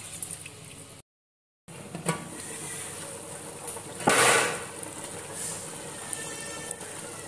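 Water pouring from a jug into a large aluminium pot of chicken curry, cut off abruptly about a second in; then the pot bubbling at a hard boil with the added water, with a short louder rush of noise about four seconds in.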